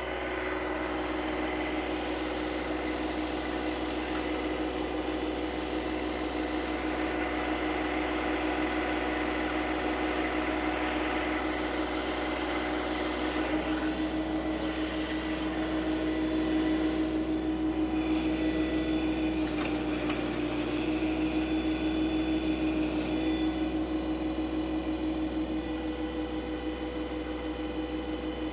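John Deere 2025R compact tractor's three-cylinder diesel engine running steadily at working speed, with a steady hum from the engine. A couple of brief hisses come about two-thirds of the way through.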